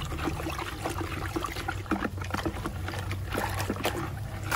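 Water sloshing and splashing in an old black bucket as it is stirred by hand with a stick, with scattered light knocks of the stick against the bucket.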